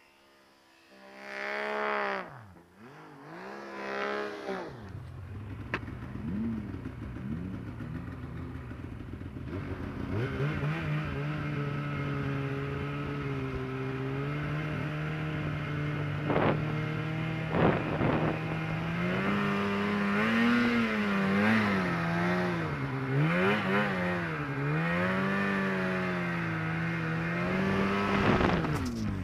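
Snowmobile engine revving twice briefly, then running under steady throttle, its pitch rising and falling again and again as the rider works the throttle. Two sharp knocks come about halfway through, and the engine sound drops away suddenly at the very end.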